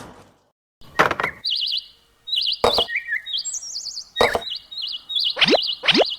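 Chirping, warbling tones like a bird call, broken by three sharp knocks, then a run of quick rising swoops near the end.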